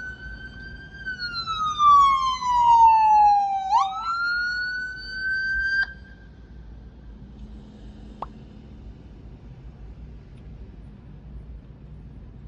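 Fire engine siren wailing as it passes, its pitch sliding slowly up and down with a quick upward sweep partway through. It cuts off abruptly about six seconds in, leaving a low background hum.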